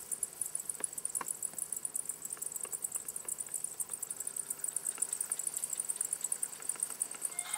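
Cicadas singing: a continuous high buzz that pulses rapidly and evenly.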